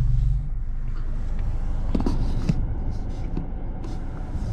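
Low rumble of a car's engine and tyres, heard inside the cabin while driving slowly over snow, with a few short knocks about two seconds in.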